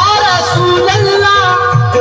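Live qawwali music: a singer's voice over a steady harmonium drone and a regular hand-drum beat.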